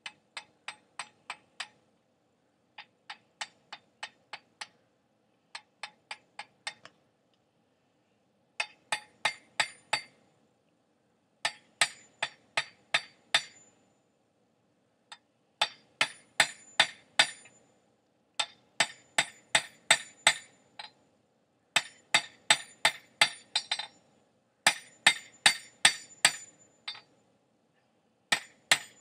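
Hand hammer striking a hot steel bar on an anvil in quick runs of about four ringing blows a second, five to eight blows at a time with short pauses between, as a fire poker is forged.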